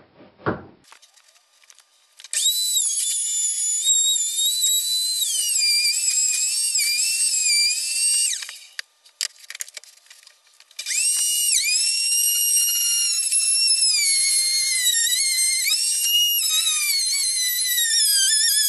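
Ferm electric router cutting a binding channel into a wooden guitar body, its high-pitched motor whine sagging and recovering in pitch as the bit bites into the wood. It winds down and stops a little after eight seconds in, then starts up again about two seconds later and runs on.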